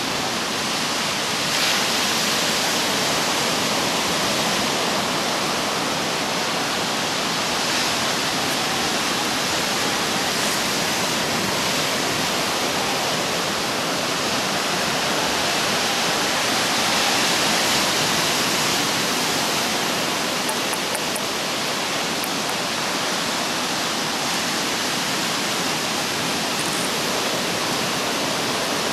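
Ocean surf breaking and washing up a sandy beach: a steady rushing of waves that swells slightly a couple of seconds in and again a little past halfway.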